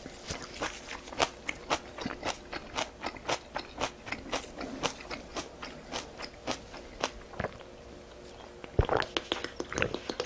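Close-miked mukbang eating sounds: chewing and crunching, with short wet clicks several times a second. The chewing pauses for about a second near the end, then comes back louder.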